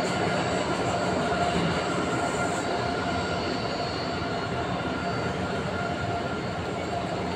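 Boeing 737-800's CFM56 jet engines running steadily at low power as the airliner taxis away, a continuous rushing noise with a high whine over it.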